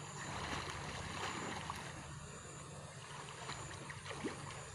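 Gentle sloshing and lapping of river water as people wade and swim through it.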